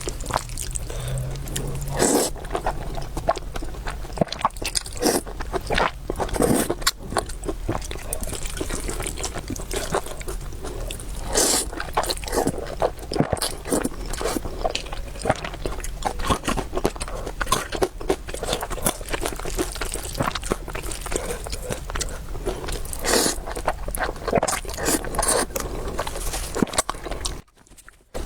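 Close-up eating sounds of a person eating a noodle meal: chewing and biting with many small wet mouth clicks and a few louder bursts. The sound drops out briefly near the end.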